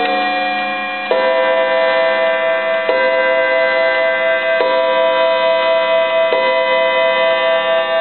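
New Haven Gunther's chime clock striking the hour on its coiled wire gong: four slow, evenly spaced blows a little under two seconds apart, each ringing on into the next.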